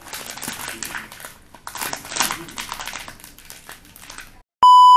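Plastic packaging and a disposable glove crinkling and rustling in irregular bursts as items are handled. Near the end comes a loud, steady electronic beep lasting under a second, like a censor bleep, which is the loudest sound here.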